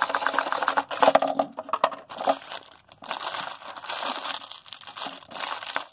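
A small cardboard toy box being opened, then the thin clear plastic bag around a die-cast toy car crinkling and rustling as fingers handle it.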